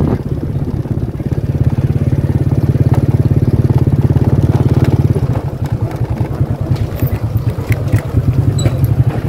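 A small motorcycle engine running at idle with a steady low putter, turning weaker and uneven about halfway through. A few light clicks near the end.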